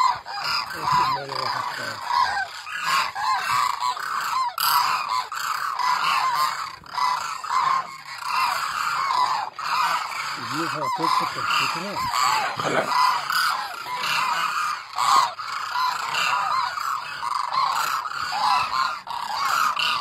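A migrating flock of cranes calling in flight overhead: many overlapping rolling calls from the birds all at once, unbroken throughout.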